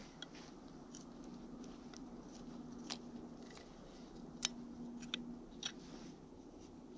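A knife whittling off the protruding handle end and yellow cedar wedge at the top of a fire axe's eye. Faint, irregular sharp cuts and snaps as slivers of wood come away, about seven in all, the sharpest about halfway through.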